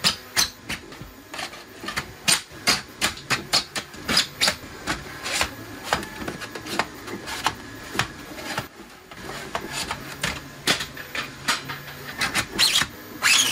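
Hard plastic clicking, knocking and scraping as 3D-printed spool trays and tabs are slid onto a wall-mounted rail frame and snapped into place: a quick, irregular clatter of sharp clicks, several a second.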